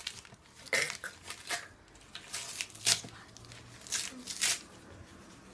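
Plastic wrapping crinkling and tearing in several short bursts as a small gift is unwrapped by hand. The loudest rip comes about three seconds in.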